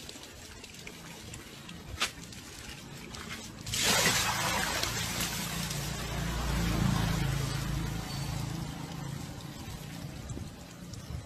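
Water from a garden hose running into a plastic tub. About four seconds in, a sudden louder rush of water sets in and fades away over the next few seconds.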